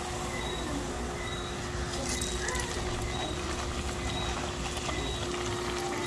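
Hot oil sizzling and crackling steadily as a large disc of dough deep-fries in an aluminium pan, with a steady low hum underneath.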